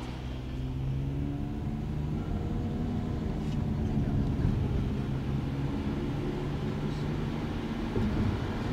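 Road vehicle driving along, heard from inside: a steady engine drone over road noise, the engine note shifting a little as it goes.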